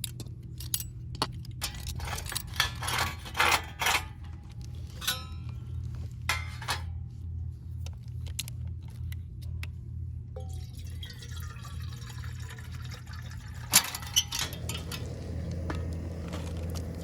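Scattered clinks and knocks of hard objects being handled, thickest in the first half and with two sharp knocks a few seconds before the end, over a steady low hum.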